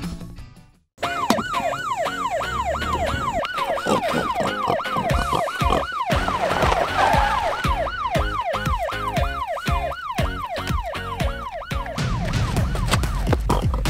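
Police siren yelping: a fast rising-and-falling wail, a little over two cycles a second, starting about a second in after a moment of silence and fading near the end.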